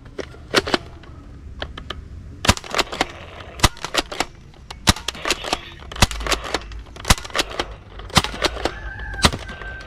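Toy gun clicking and snapping as it is cocked and fired: about twenty sharp, irregular clicks over a low hum.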